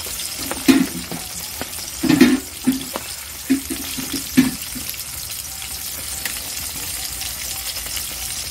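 Pieces of silver carp frying in hot oil in a karahi, a steady sizzle throughout. A few short, louder low sounds come in the first half.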